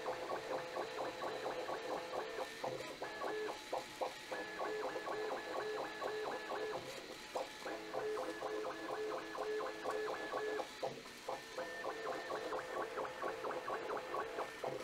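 Bambu Lab A1 3D printer's stepper motors running at sport-mode speed, giving out pitched tones that change pitch and break off with each rapid change of direction as the print head zigzags back and forth. The printer is keeping up at this speed.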